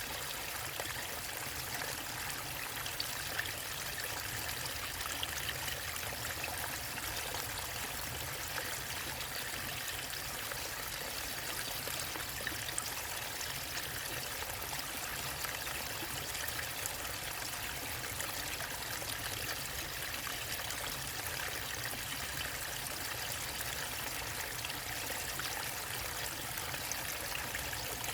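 Running water of a waterfall and stream: a steady, even rush.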